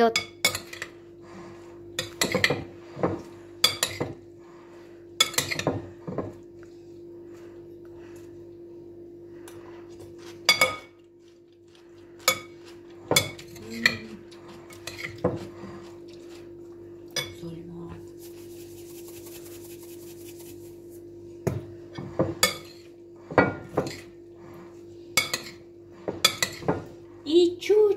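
Metal cutlery clinking and scraping against a cut-glass bowl as a chopped vegetable salad is tossed, in irregular clinks with a few short pauses.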